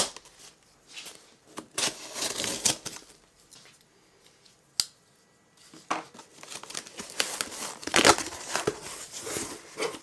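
Packing tape on a cardboard shipping box being cut and torn, with a single sharp click about halfway through. Then the cardboard flaps are pulled open with scraping and rustling.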